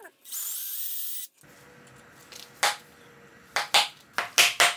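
Cordless drill boring into the metal housing of a BMW electric water pump to drill out the pins holding its back piece: a short burst of drilling with a high motor whine, a brief stop, then about another second of drilling. In the last two seconds, several sharp metallic clicks and knocks of tools on the pump, louder than the drilling.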